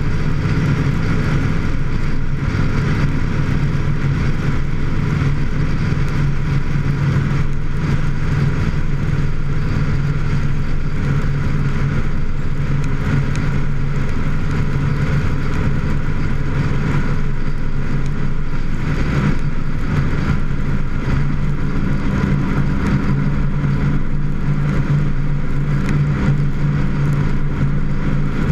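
Vehicle engine running steadily with road and wind noise while cruising at a near-constant speed, heard from a hood-mounted camera; its low hum holds a nearly steady pitch, shifting slightly about three-quarters of the way through.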